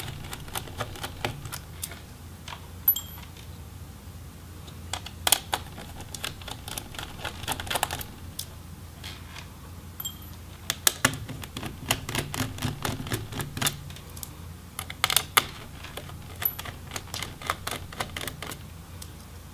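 Small Phillips screwdriver backing out the motherboard screws of an MSI GL62M laptop: runs of quick clicks and small taps, in several bursts.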